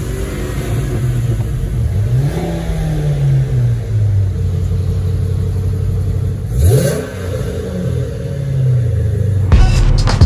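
Car engine revving several times, its pitch rising and then falling away between revs. Near the end it gives way to music with a steady beat.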